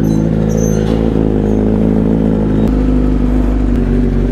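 Kawasaki Z900's inline-four engine idling steadily, warming up after a cold start.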